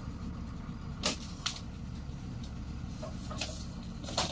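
Engine of a truck-mounted borewell drilling rig running with a steady low rumble, with about four sharp knocks from the rig's working gear, the loudest about a second in and near the end.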